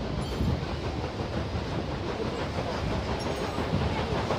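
Paddle steamer under way: its steam engine and paddle wheels running steadily.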